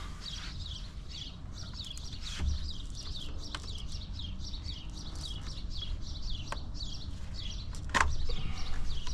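Birds chirping rapidly and continuously in short falling notes, with a few sharp clicks, the loudest about eight seconds in.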